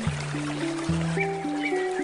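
Handpan playing slow, ringing notes over a steady babbling river. Short bird chirps come in about halfway through.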